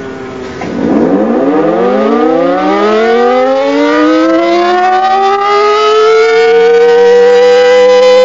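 Decot civil defense siren, which the uploader takes for a 10/16-port model, winding up from a start about a second in. Its tones rise steadily in pitch for several seconds and level off near the end.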